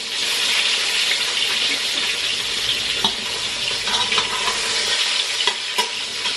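Salmon fillets sizzling steadily in hot olive oil in a frying pan as they are turned over, with a few light clicks of the utensil against the pan.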